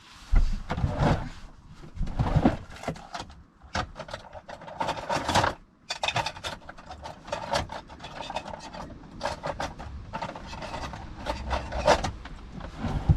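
Rummaging through a wooden cupboard or drawer under the seat of a home-made campervan for a knife: irregular knocks, clatters and the rubbing and scraping of wood and objects being moved about.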